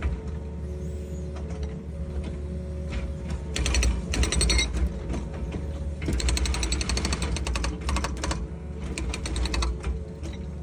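Excavator running with a steady engine hum, broken three times by a second or so of rapid mechanical clatter.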